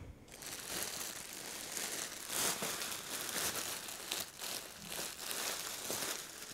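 Clear plastic packaging bag crinkling steadily as it is handled and pulled off a stack of folded baby clothes.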